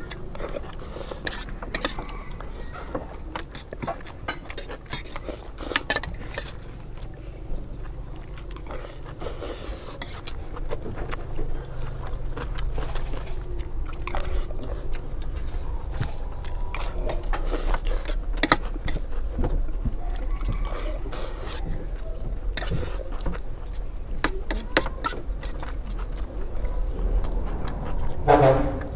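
Metal spoons clinking and scraping against steel trays in frequent irregular clicks as rice is scooped up, with chewing and a low steady rumble underneath. A short vocal sound comes just before the end.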